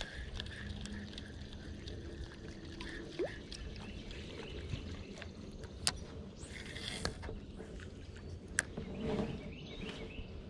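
Steady low background noise aboard a bass boat on open water, with a few sharp clicks or knocks, the sharpest about six and about eight and a half seconds in.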